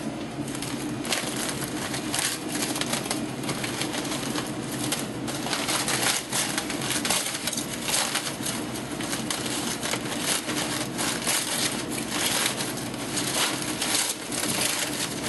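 Aluminium foil crinkling and crackling as a foil wrap around smoked meat is handled and opened, a continuous run of small crackles.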